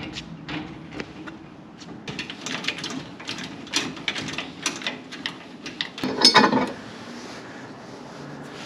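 Metal clicks, rattles and clanks of a boat trailer's tongue jack and coupler as the trailer is hitched onto a truck's tow ball, with a louder clunk and rattle about six seconds in.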